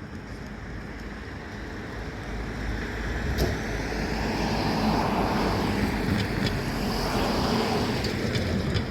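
Volvo fire engine's diesel engine and tyres building up as it pulls out and passes, loudest from about four seconds in, with wind on the microphone.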